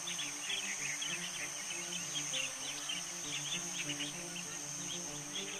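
Field ambience: a steady high insect drone with many short chirps scattered through it, over soft background music.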